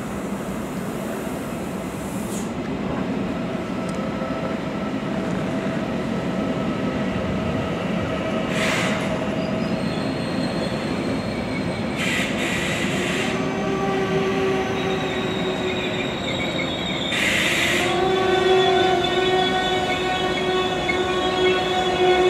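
ICE T electric tilting multiple unit pulling into the station and slowing to a stop, its running noise growing louder as it comes closer. A few short hisses sound along the way, and steady whining tones set in during the second half as it brakes.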